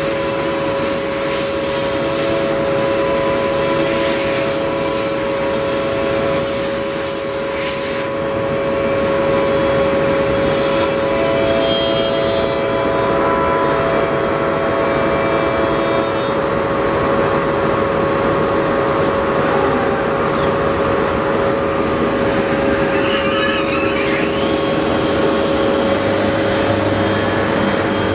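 Morbidelli SCM M100 CNC processing centre's 5-axis spindle routing a wooden panel: a steady machine whine with a loud hiss of cutting that stops about eight seconds in. Near the end a high whine rises and then holds steady.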